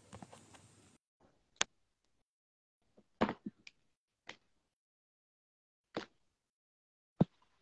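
Phone handling noise: a handful of short taps and knocks, scattered irregularly with silence between them, as fingers touch and move the phone.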